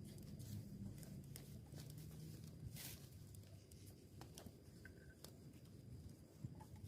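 Near silence: a faint low hum with scattered soft ticks and rustles.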